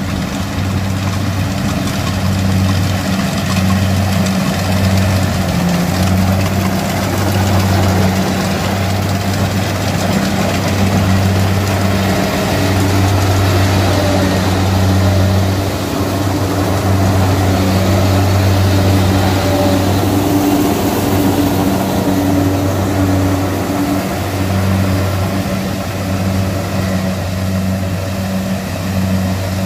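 Kubota DC70 combine harvester running: a loud, steady engine drone that swells and dips every second or two, with a broad mechanical rush above it.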